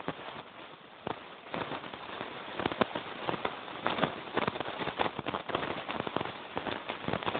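Sled runners scraping and crackling over a packed, rutted snow track, a steady rough noise broken by many small knocks and clicks from bumps.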